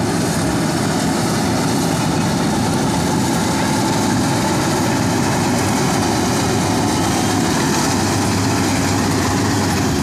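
Banglamark Marksan MS-1200 combine harvester running under load as it cuts standing rice: a steady engine and machinery drone.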